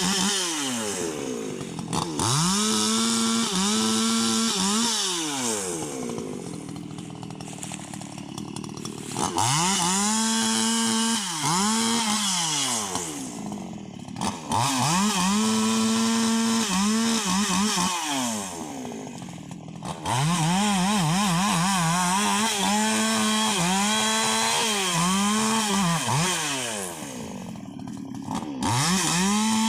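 Husqvarna 288 XP two-stroke chainsaw cutting rubberwood at full throttle, its engine pitch sagging and recovering again and again as the chain bites. It drops back toward idle four times between runs at full revs.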